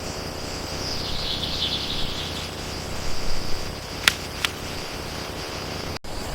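Steady ambience: a high, hissing buzz over a low rumble, with two sharp clicks about four seconds in and a brief cut to silence near the end.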